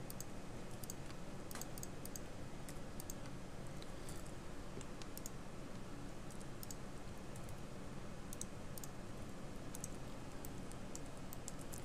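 Light, irregular clicks of a computer mouse and keyboard, about two a second, over a faint steady background hum.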